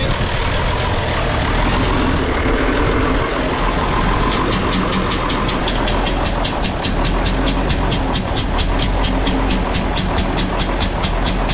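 Allis-Chalmers D17's six-cylinder diesel engine running after its fuel system has been bled of air following a run-out of fuel. A rapid high ticking, about four ticks a second, joins the engine sound about four seconds in.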